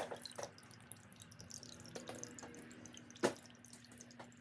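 Water trickling and dripping in a small terrarium waterfall, with a steady low hum underneath and a sharp click about three seconds in.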